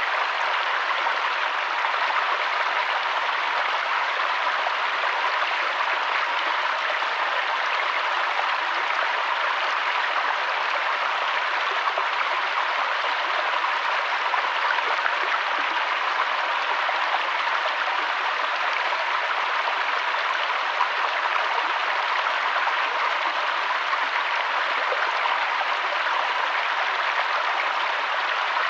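Waterfall water rushing and splashing in a steady, even hiss with no breaks.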